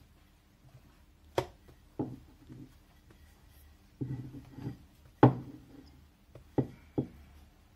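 Wooden rolling pin knocking and rolling on bread dough over a silicone pastry mat: about six sharp wooden knocks, irregularly spaced, the loudest just past the middle.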